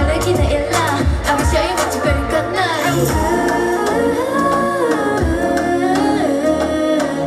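A K-pop girl group's song played live over a loud PA, with singing over a pop backing track and a steady beat. About three seconds in, the beat drops back while a sung line is held, then the drums return near the end.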